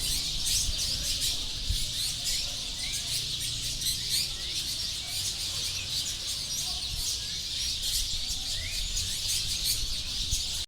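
Dozens of small birds chirping all at once in a dense, unbroken chorus of short, overlapping high notes: a flock settling in a tree to roost at dusk.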